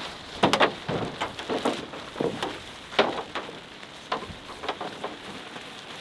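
Nylon truck-bed tent fabric rustling and crinkling in irregular bursts as it is pulled and spread over a pickup's bed, with a few sharper snaps, the loudest about half a second in and at about three seconds.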